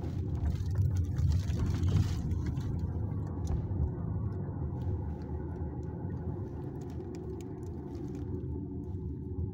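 Steady low rumble of a taxi's engine and tyre noise heard from inside the cabin while driving, a little louder in the first couple of seconds.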